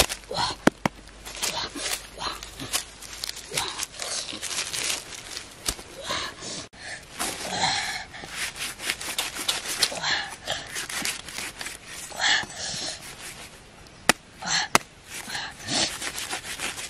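A large knife cutting into a ripe jackfruit: irregular crunching and tearing of the thick, knobbly rind as the blade works through it, with a few sharp clicks and knocks of the blade against the fruit.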